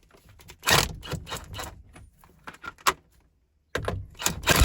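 Impact gun on a steering wheel's centre nut, heard as clattering handling and then short bursts of hammering near the end, loosening the nut.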